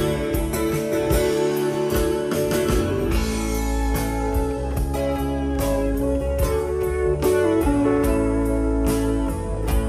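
Live band playing an instrumental passage without singing: electric and acoustic guitars with a pedal steel guitar, over bass and drums. The bass fills in strongly about three seconds in.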